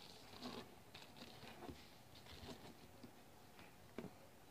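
Near silence: room tone with a few faint scattered clicks and taps, and a sharper click near the end.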